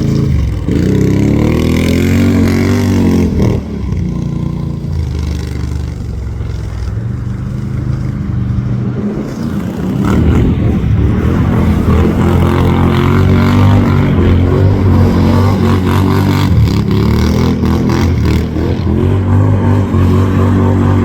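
Can-Am Outlander Max XT 650's V-twin engine running through a Yoshimura slip-on exhaust, revving and pulling under throttle. It drops back about three and a half seconds in, then climbs again about ten seconds in and holds at higher revs.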